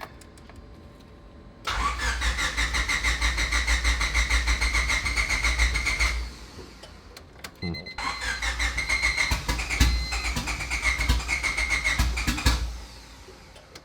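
A turbocharged Honda Civic hatchback's starter cranking the engine in two attempts of about four to five seconds each, a steady rapid churn, without the engine catching. It is a crank-no-start that the owners put down to the tune sending too much fuel from the new injectors: the spark plugs came out wet.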